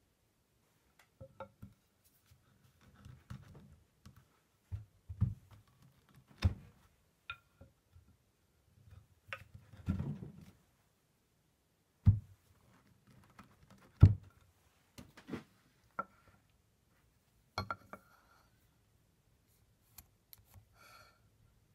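Chisel cutting a mortise in a hardwood leg blank: a dozen or so irregular sharp knocks and scrapes with quiet gaps between them, the loudest about twelve and fourteen seconds in.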